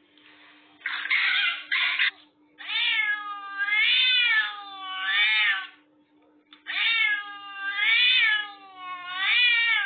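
A domestic cat meowing loudly and repeatedly: six drawn-out meows, each rising then falling in pitch, in two runs of three with a short pause between. A brief rough, noisy burst comes just before the first meow.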